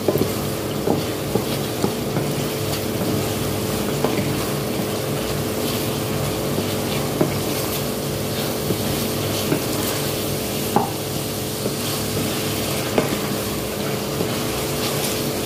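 Wooden spatula stirring chicken in sauce in a stainless steel pot, with scattered short taps and scrapes against the pot over a steady sizzle and a low steady hum.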